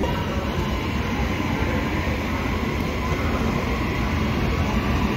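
Metro Trains Melbourne High Capacity Metro Train (electric suburban train) moving along the platform: a steady low rumble.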